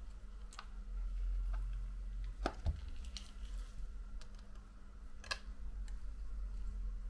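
A few scattered small clicks and taps of a thin metal blade working at the bottom edge of an iPhone XS screen, the sharpest about two and a half and five seconds in, over a steady low hum.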